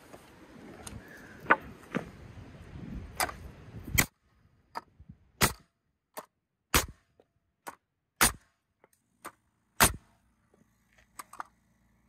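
Pneumatic framing nailer (Metabo NR90, 21-degree) firing four sharp shots about 1.5 seconds apart, driving 3-inch nails into 2x4s, with lighter clicks between them. Right after the fourth shot a 1-gallon air compressor kicks on with a faint low hum, its tank pressure having fallen below the cut-in point just under 90 PSI. Before the shots, a steady background noise with a few knocks cuts off about four seconds in.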